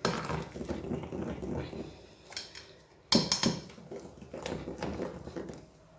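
A utensil stirring and scraping cake batter in a mixing bowl, with a sharper knock against the bowl about three seconds in.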